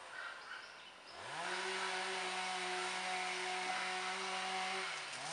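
A small engine, like that of a chainsaw or brush cutter, revs up about a second in, runs at a steady high speed for about three seconds, then drops back down near the end.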